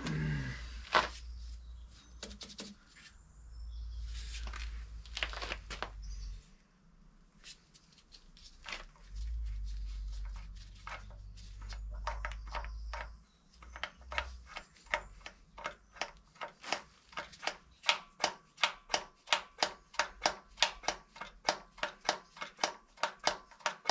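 Hand primer on a Zetor 4911 tractor's diesel fuel lift pump being worked by hand, with scattered knocks at first, then a steady run of sharp clicks at about two a second from about halfway in. It is drawing fuel through to fill the sediment bowl after long disuse.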